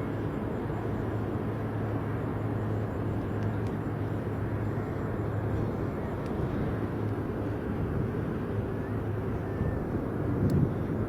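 Steady, even rumble of aircraft engine noise with a low hum underneath and a brief louder low surge near the end.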